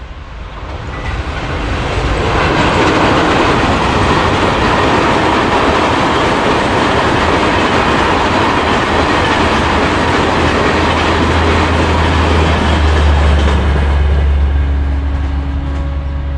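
High-capacity parcel express of LHB coaches behind a WAP-4 electric locomotive passing at speed: a steady rumble and clatter of wheels on the rails. It builds over the first two seconds and dies away near the end.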